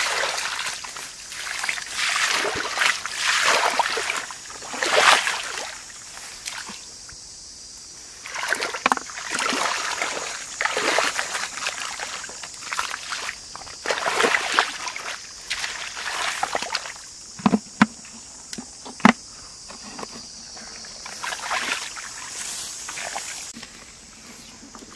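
Muddy water sloshing and splashing as a plastic basket scoops it out of a shallow pool and pours it away, a surge every second or two. Two sharp knocks come a little past the middle.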